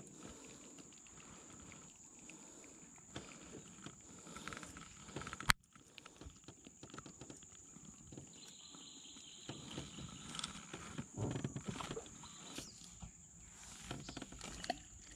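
Quiet riverside ambience: a steady high-pitched insect drone, with faint scattered rustles and knocks and one sharp click about five and a half seconds in.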